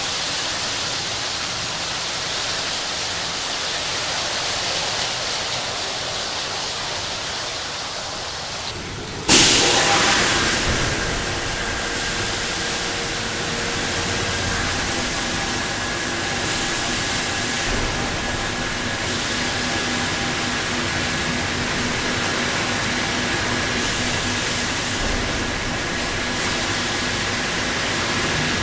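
Industrial shelf-washing machine running: a steady hiss of nozzles spraying. About nine seconds in, another stage starts abruptly with a louder burst, then settles into steady running with a low hum and a faint high whine.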